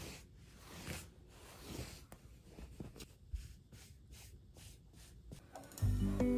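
Soft brushing and scraping of a chunky woven rug being unrolled and smoothed by hand on the floor, in a few separate strokes with a light knock or two. Acoustic guitar music starts near the end.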